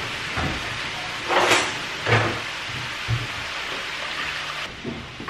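Vegetables and chicken frying in pans on the hob with a steady sizzle, broken by a few short clinks and knocks of a whisk and utensils against steel pans.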